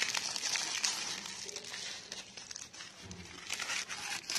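Paper and plastic wrappers and a wad of cotton being handled and folded by hand, crinkling in an irregular crackle.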